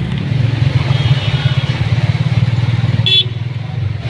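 Auto-rickshaw's small engine running with a fast, even putter, heard from inside the cabin while riding through floodwater. A short high beep cuts in about three seconds in.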